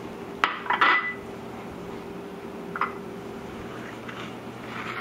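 Kitchenware clinking: a sharp click about half a second in, then a short clatter ending in one ringing clink of glass or metal about a second in, and a small tick near three seconds. A steady low hum and hiss runs underneath.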